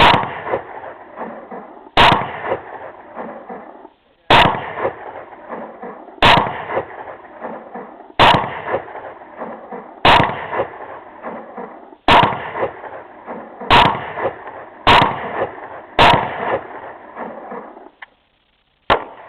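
Draco C AK-pattern pistol in 7.62×39 mm with a muzzle brake, fired in about ten separate shots at a slow, roughly even pace. Each shot is followed by a long trailing echo, and there are two faint clicks near the end.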